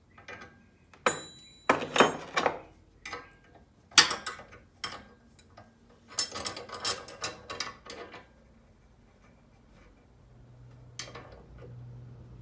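Metal parts and tools clinking, knocking and scraping as a bolt is set in a bench vise and a nut is threaded onto it, with one short metallic ring about a second in. The knocks stop about eight seconds in, and a low steady hum follows.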